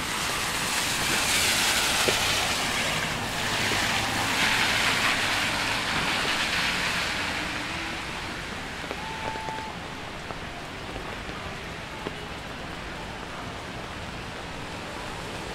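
Vehicles swishing past on a wet road, their tyres hissing through the water in two loud swells during the first seven seconds, then a steady wash of rainy street traffic noise.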